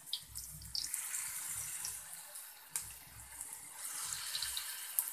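Spinach and chickpea-flour batter koftas sizzling in hot oil in a frying pan, a steady hiss, with a few light clicks as more batter is spooned into the pan.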